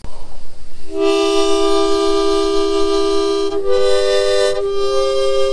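Harmonica played in long held chords, starting about a second in and moving to a new chord twice.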